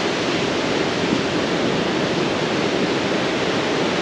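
Surf breaking and washing onto a sandy beach: a steady, even rush of noise.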